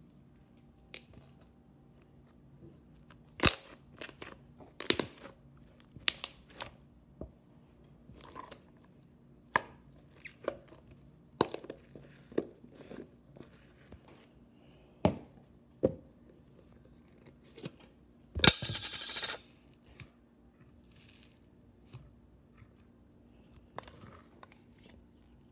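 Hands handling slime and plastic slime jars: scattered sharp clicks, pops and taps at irregular times, with one louder rough rasping burst lasting about a second past the middle.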